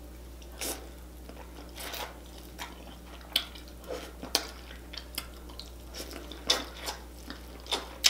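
A person biting into and chewing sauce-covered corn on the cob, with irregular crunches and clicks.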